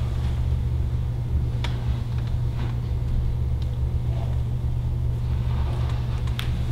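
Steady low room hum with a few faint short clicks and no speech.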